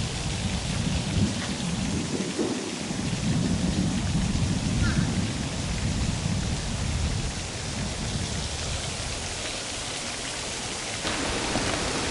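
Wind buffeting the camera microphone outdoors: an uneven low rumble that rises and falls, with a steady hiss above it, turning to a brighter hiss near the end.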